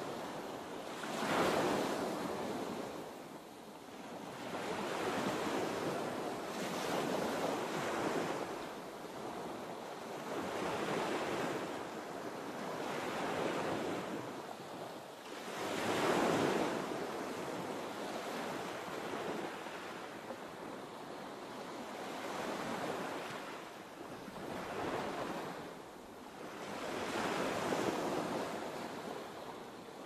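Ocean surf: waves breaking and washing in, swelling and ebbing in surges every few seconds.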